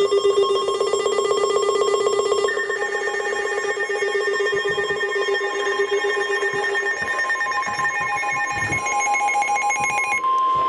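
Emergency weather alert tones: several electronic alarm tones at different pitches pulsing rapidly together, joined near the end by a steady single tone. They are the lead-in to a NOAA Weather Radio tornado warning.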